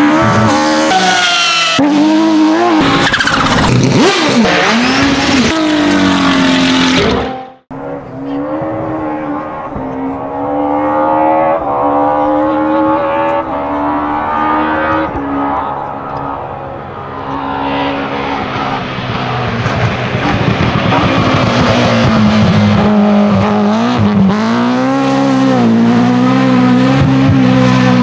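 BMW E30 M3 Group A rally car's S14 2.3-litre four-cylinder engine at high revs. It revs hard with quick rises and falls in pitch, cuts off suddenly about seven seconds in, then returns faint and grows steadily louder as the car approaches, dipping in pitch with gear changes near the end.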